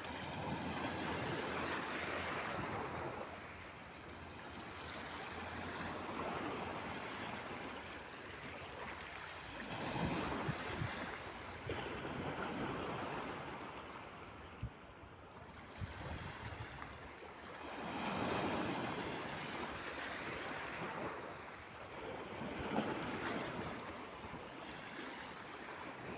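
Sea waves breaking and washing up on the shore, the surf swelling and falling back in long surges every several seconds.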